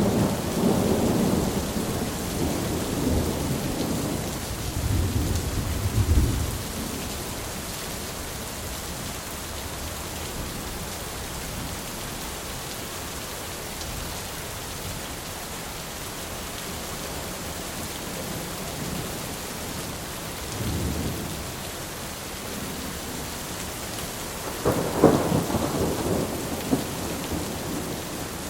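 Thunderstorm: steady rain with rolling thunder. A long rumble runs over the first six seconds, a faint rumble comes about 21 seconds in, and a sharper, louder clap comes near the end.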